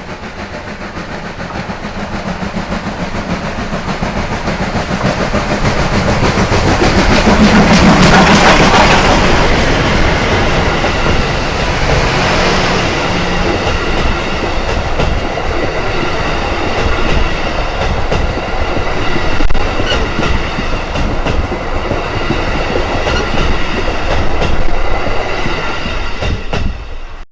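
Steam locomotive hauling a passenger train past. Its sound swells to a peak about eight seconds in, then the coaches' wheels clatter over the rail joints as the train goes by, and it cuts off suddenly at the end.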